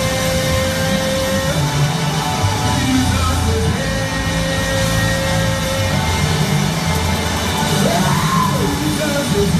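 Live gospel praise music: held keyboard chords over a moving bass line, with a man singing and shouting into a microphone. His voice slides up and back down near the end.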